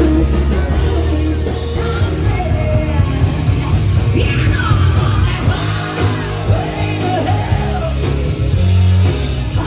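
Loud rock music with a singer over a heavy bass line.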